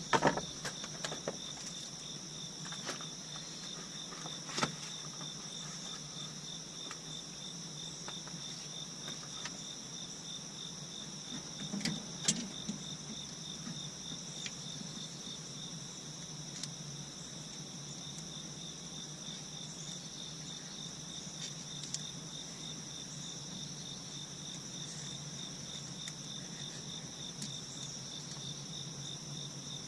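Crickets trilling steadily in a fast, even pulse, with a few short clicks and knocks about 4 to 5 seconds in and twice about 12 seconds in.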